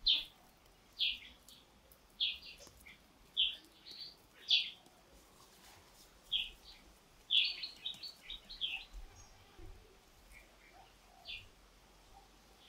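A bird chirping: short, high calls at uneven intervals of about a second, with a quick run of several calls about halfway through and a single call near the end.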